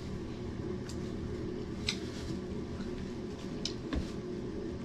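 People eating grilled chicken with their hands: a few short mouth smacks and clicks and one soft thud, over a steady low hum.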